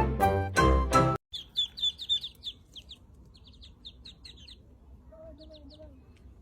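Music cuts off about a second in, then a small bird chirps in quick, high runs, with a faint lower call near the end.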